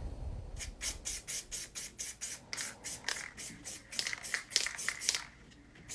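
Aerosol spray-paint can sprayed in rapid short hisses, about four or five a second, laying gray paint over a stencil.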